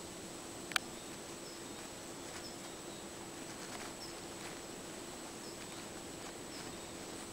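Quiet outdoor ambience: a steady hiss with a low hum, faint short high chirps every second or so, and one sharp click about a second in.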